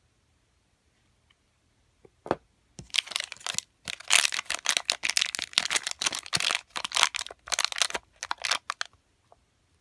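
Packaging crinkling and tearing as it is opened by hand: a single crack, then about six seconds of dense crackling in quick irregular bursts that stops near the end.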